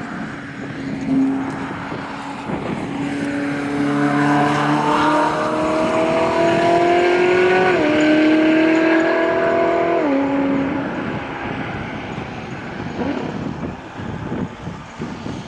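Ferrari 458 Italia's V8 accelerating hard away, its pitch climbing steadily. The pitch drops abruptly at an upshift about eight seconds in, climbs again, drops at a second shift about two seconds later, and then the sound fades as the car draws off.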